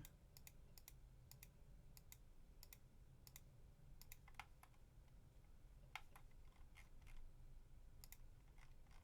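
Faint, irregular clicking of a computer mouse and keyboard, some clicks in quick pairs, as a 3D model is worked on in CAD software.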